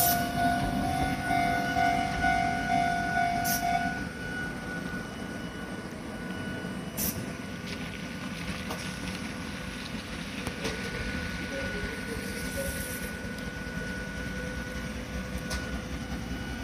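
Hakone Tozan Railway Moha 1/2 electric car rolling slowly past at close range, its wheels and running gear rumbling under a steady pulsing tone. About four seconds in the tone stops and the sound drops to a low hum as the train draws to a stop, with a few sharp clunks.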